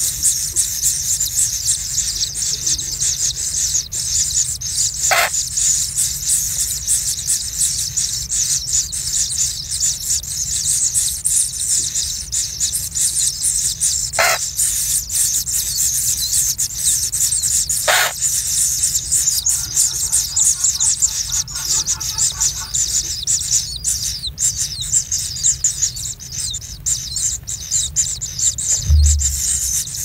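Kingfisher nestlings begging in a chorus: a continuous high, buzzing chitter of rapid ticks. Three short sharp clicks sound through it, and there is a low thump near the end.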